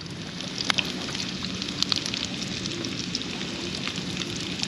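Crumbed cuttlefish pieces frying in oil in a frying pan on a portable gas camp stove: a steady sizzle with frequent sharp crackles and pops of spitting oil.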